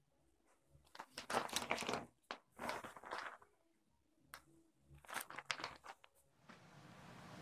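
A plastic shopping bag rustling and crinkling in several bursts as it is handled with a kitten moving inside it, with one sharp click about four seconds in.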